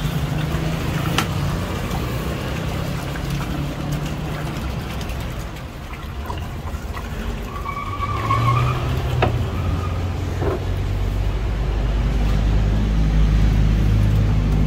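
Motor traffic running on the street, a low engine hum that gets louder over the last few seconds as a vehicle comes close, with a few light clicks.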